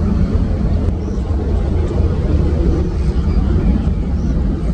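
Jet aircraft engines, a steady deep rumble.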